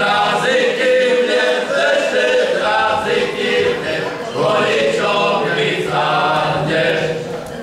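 A men's folk choir sings a song together in phrases, with short breaks between lines. The singing trails off near the end.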